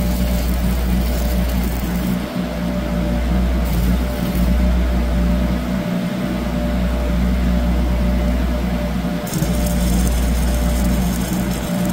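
Wire-feed welder arc crackling and hissing as a nut is welded onto a stuck excavator final-drive bolt, heard in spells at the start and again from about nine seconds in. Under it runs a steady engine drone.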